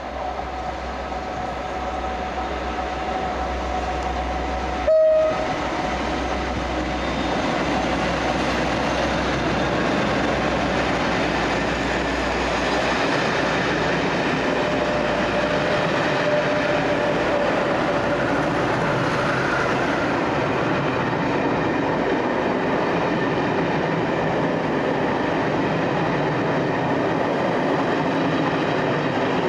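A British Rail Class 57 diesel locomotive approaches and passes, growing louder, with one short horn blast about five seconds in. Its train of Pullman coaches then rolls by with a steady rumble and clatter of wheels on the rails.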